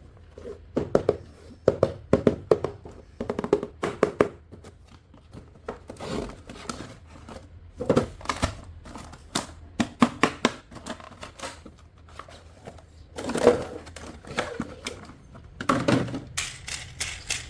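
Plastic toys and packaging being handled: irregular clicks, taps and light knocks with some crinkling, a little denser about thirteen seconds in and again near the end.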